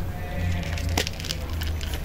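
Ginger cats crunching dry cat kibble: irregular small crunches and clicks as they chew, with one sharper crack about a second in, over a steady low hum.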